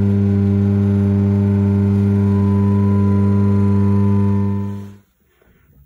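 Transwave RT3 three-phase rotary converter running, a steady electrical hum with a deep drone and a stack of higher overtones. The hum fades away about five seconds in.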